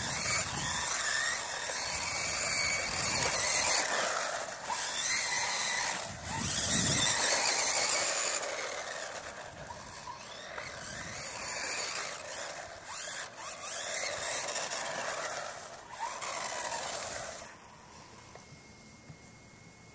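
Four-wheel-drive electric RC stadium truck on a 2S battery driving fast over asphalt: high-pitched whine from the electric motor and gears with tyre hiss, the pitch rising and falling as it speeds up and slows through repeated passes. The sound drops away about seventeen seconds in as the truck stops.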